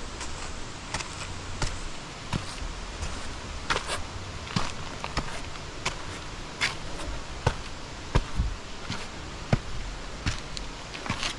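Footsteps on a trail: a series of sharp, irregular taps about one every half to one second, over a steady hiss and low rumbling handling noise.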